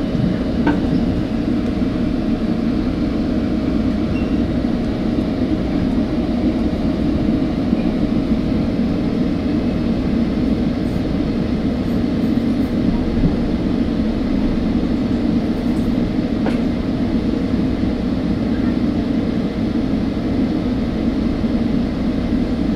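Trinity Railway Express commuter train running at speed, heard from inside a passenger car: a steady, even rumble with a faint constant hum over it.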